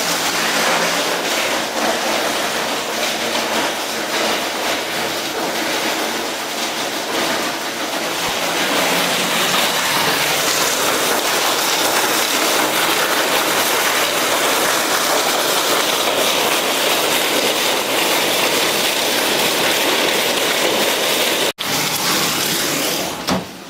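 Heavy rain mixed with hail falling hard, a loud, dense, steady rush of noise with a momentary break near the end.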